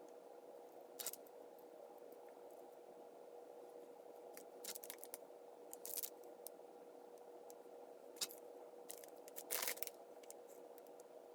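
Glue being worked onto a mended piece by hand: a few faint, short scrapes and clicks, the loudest near the end, over a steady hum.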